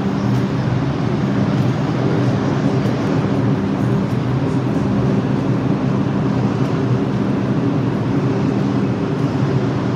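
New York City subway train running, a loud steady hum with a low drone over a rumbling noise.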